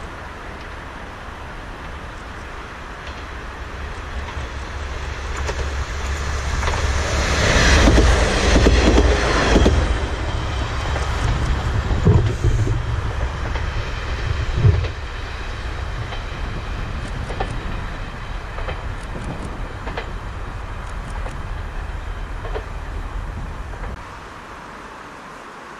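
A vehicle passing by: a rumble that grows louder to a peak about eight to ten seconds in, then eases off, with two sharp knocks a few seconds later. Near the end it drops suddenly to a quieter hiss.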